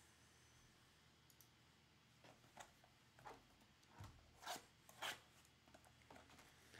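Near silence, then a few faint taps and scrapes as cardboard trading-card mini-boxes in shrink wrap are picked up off a stack and handled, the clearest two about four and a half and five seconds in.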